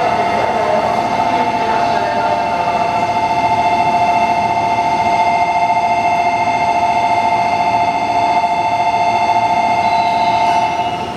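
Electric departure bell on a station platform ringing continuously for about eleven seconds, a bright trembling two-tone ring that cuts off shortly before the end: the signal that the train standing at the platform is about to leave.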